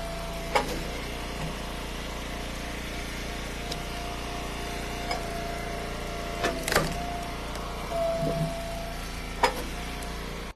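Eastonmade Ultra hydraulic wood splitter running steadily, a constant engine hum with a high pump whine. A few sharp knocks and cracks of firewood come through it, the loudest near the end.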